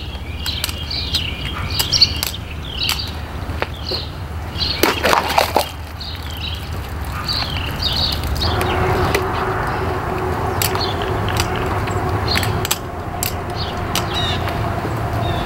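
Small birds chirping repeatedly, with scattered sharp clicks. From about eight seconds in, a steady hum joins them.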